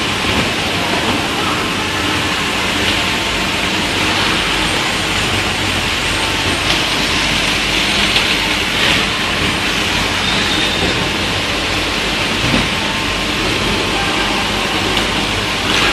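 An automatic sleeve labeling machine and its bottle conveyor running, a steady mechanical din with a few faint knocks as the plastic bottles are carried along.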